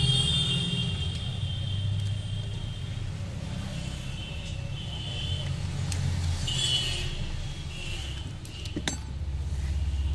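Cracked display assembly of a Vivo Y95 being prised and peeled off its glued frame by hand, with faint crackling and scraping of the adhesive giving way and a sharp click about nine seconds in, over a steady low rumble.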